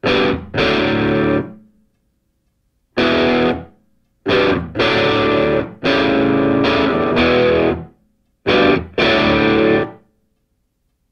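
Distorted electric guitar music played as chords in stop-start bursts, each chord held briefly and then cut to silence, several times.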